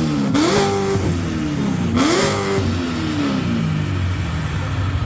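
Sports car engine revved hard in a rev battle: the pitch climbs, holds briefly and falls back three times in succession, then settles into a low rumble.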